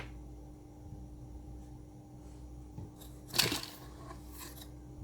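Quiet handling noises from working inside an opened laptop with a small screwdriver: a short scraping rustle about three and a half seconds in and a fainter one just after, over a steady low hum.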